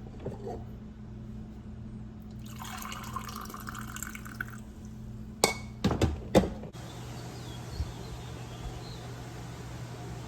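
Water running for about two seconds, then three sharp knocks about half a second apart, over a steady low hum in a small room.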